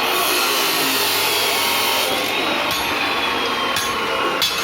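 Electric angle grinder running steadily, its high whine sagging and recovering in pitch, with a few short scraping bursts near the end.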